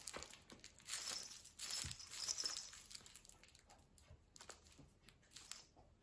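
A cat biting and clawing at a stuffed duck toy with a rough, fibrous body, making bursts of rustling and scratching in the first couple of seconds, then only light scratches and ticks as it stops.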